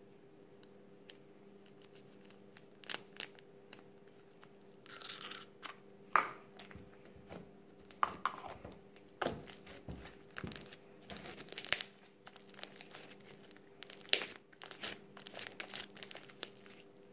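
Slime with rice mixed into it being kneaded and stretched by hand, giving irregular sticky crackles and pops.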